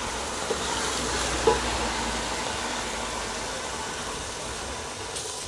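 Onion-tomato masala sizzling steadily as it fries in oil in an aluminium pot, being stirred with a wooden spoon, with two light knocks about half a second and a second and a half in. The masala is still being fried down (bhuna), before the oil separates.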